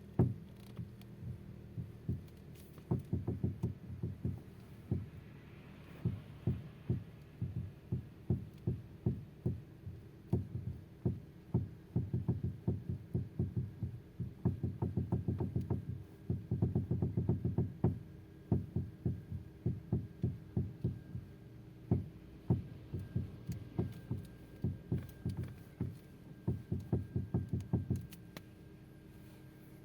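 Repeated knocking from a car's steering, a fault knock in the steering. The knocks come in quick runs of several a second with short pauses between, over a steady low hum that stops near the end.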